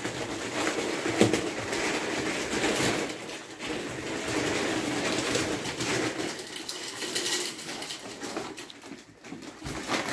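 Ferrets scrambling through and shoving clear ribbed plastic tubes, the flexible plastic crinkling and rattling with scattered sharper clacks, the loudest about a second in.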